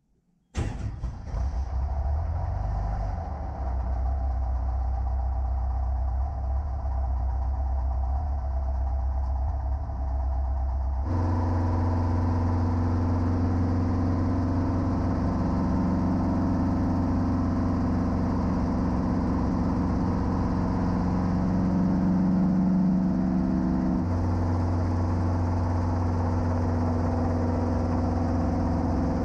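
Safari 400 helicopter's Titan 390 four-cylinder piston engine starting: it catches suddenly about half a second in and settles into a steady run. About ten seconds in the sound changes abruptly to a fuller, steady engine run.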